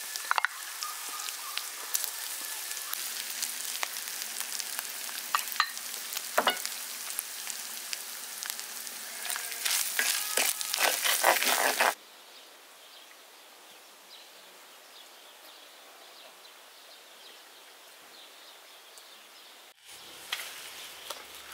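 Minced meat frying and sizzling in butter in a steel pot, stirred with a wooden spoon, with scattered clicks and scrapes. The crackling grows louder about ten seconds in, then cuts off suddenly to a much fainter sizzle.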